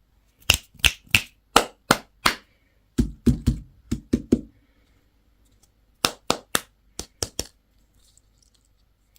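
Sharp taps and cracks in three quick runs of five or six strokes each, the middle run heavier and deeper, typical of hard plastic toy packaging or candy being handled and cracked open.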